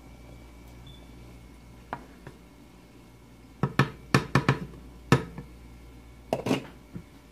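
A wooden spoon knocking against the rim of a saucepan, with a quick run of sharp raps about halfway through. A glass pot lid then clatters onto the pan near the end.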